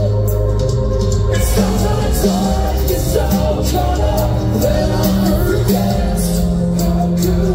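Live metalcore band playing loud: distorted guitars, bass and pounding drums, with vocals over the top.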